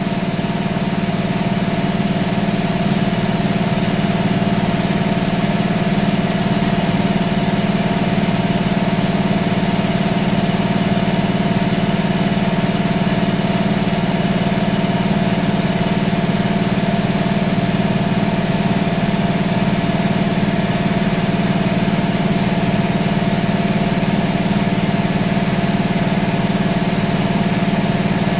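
CNC vertical machining centre running, a loud steady mechanical hum with a few steady tones above it. It builds slightly over the first few seconds, then holds even.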